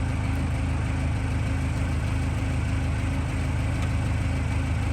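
Steady low-pitched mechanical hum of a running motor, with no change in pitch or level.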